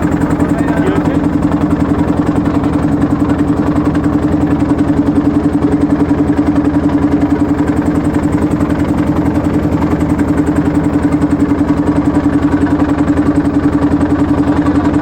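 A motor boat's engine running steadily at constant speed, with a fast, even pulse.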